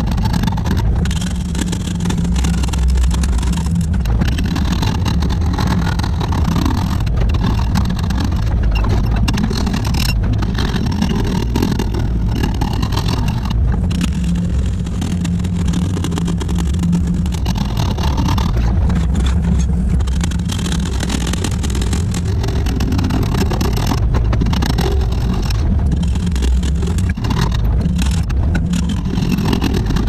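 Excavator's diesel engine running under load while its hydraulic breaker hammers on concrete, a steady continuous hammering with no pauses.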